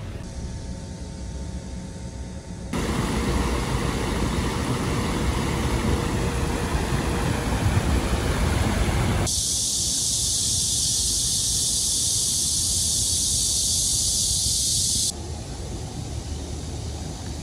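A swollen, muddy stream rushing fast over a paved edge: a loud, steady rush that starts abruptly about three seconds in. Partway through it abruptly becomes a bright, high hiss, and near the end it drops to a quieter steady outdoor noise.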